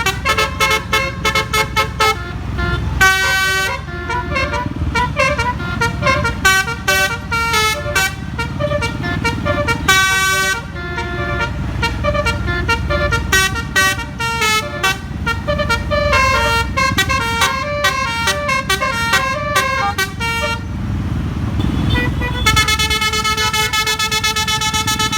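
A bus's musical telolet air horn playing a fast tune of rapidly changing notes, over low engine and road rumble. Near the end it settles into one long held chord.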